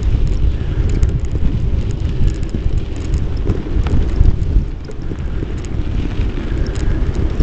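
Wind buffeting the microphone of a bike-mounted action camera while riding, with the low rumble of the bicycle rolling over the path and scattered light rattles.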